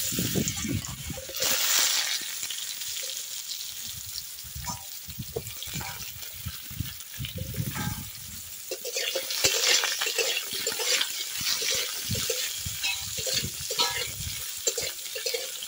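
Potato sticks sizzling as they fry in hot mustard oil in a kadai. In the second half a metal spatula stirs and scrapes them against the pan, with short clatters over the hiss.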